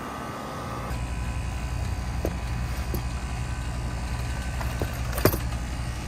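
A machine starts up about a second in and runs with a low, steady hum that pulses quickly and evenly. A few sharp clicks sound over it, the loudest about five seconds in.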